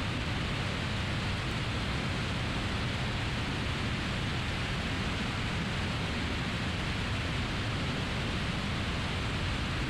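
Steady rushing noise of a Piper Archer in cruise flight, engine and airflow blended into an even hiss with no distinct engine note.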